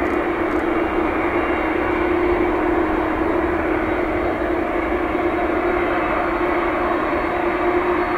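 Boeing 787-8 airliner's Rolls-Royce Trent 1000 jet engines running steadily as it rolls out on the runway just after touchdown. It is a continuous rushing noise with a constant droning tone beneath it.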